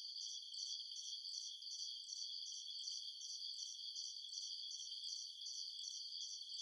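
Crickets chirping at night: a steady high-pitched trill with a pulsing chirp repeating about two or three times a second.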